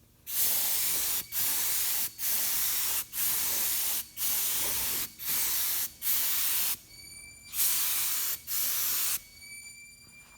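Epoxy primer being sprayed in nine short hissing bursts of about a second each, with a slightly longer pause about seven seconds in.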